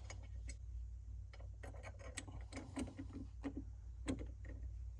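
Light, irregular clicks and taps of small metal hardware as screws are started by hand into a billet brake pedal pad, over a steady low hum.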